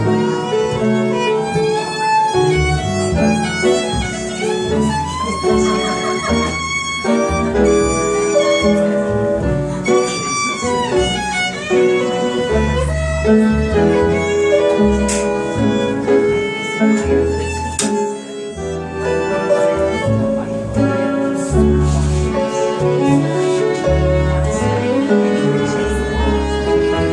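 Live jazz instrumental: a violin leads a melody with slides between notes, over upright piano accompaniment and a double bass.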